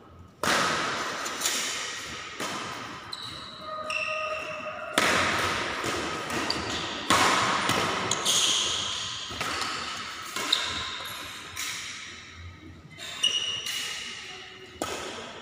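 Badminton rally: sharp smacks of rackets hitting a shuttlecock every one to two seconds, echoing around a large hall, with short squeaks of shoes on the court floor between hits.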